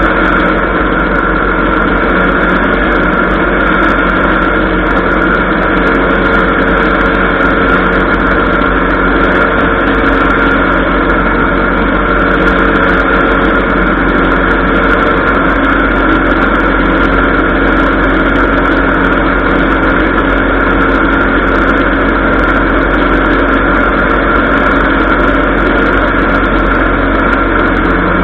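A Zenith 750's ULPower aero engine and propeller running steadily in flight, heard inside the cockpit along with the rush of air.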